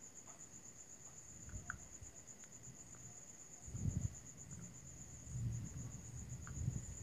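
A cricket trilling steadily, a high, evenly pulsing tone. A few soft low bumps of handling come about four seconds in and again near the end.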